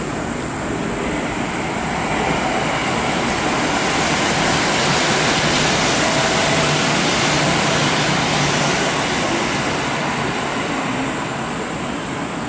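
A Kintetsu electric train moving on a track through the station, its running and rail noise building for a few seconds, peaking midway and then fading away.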